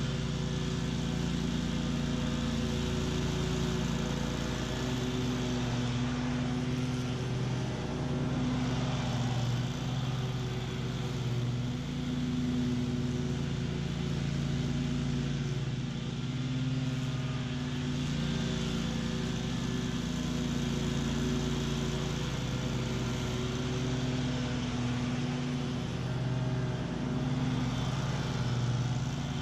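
Bob-Cat QuickCat 36-inch stand-on mower running steadily at full throttle with its blades engaged, cutting tall, thick weeds.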